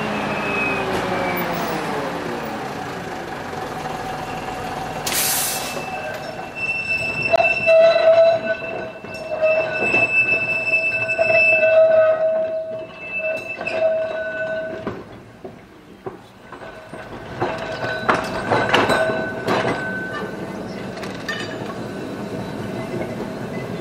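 Heritage tram running on the rails. A whine falls in pitch in the first few seconds, a sharp knock comes about five seconds in, and then the wheels squeal on a few steady high pitches in two long stretches, with clicks and knocks from the track.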